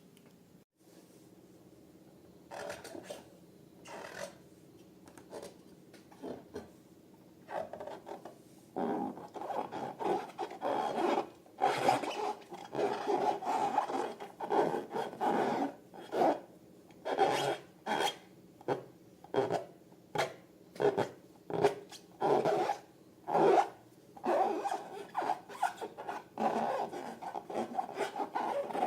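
Repeated hand-rubbing strokes on rubber balloons, with a squeaky edge. The strokes are sparse at first and, from about nine seconds in, come about one to two a second.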